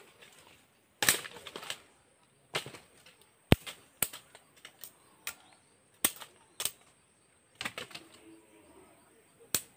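Machete chopping bamboo: about a dozen sharp, irregular strokes, some in quick pairs, the loudest about three and a half seconds in.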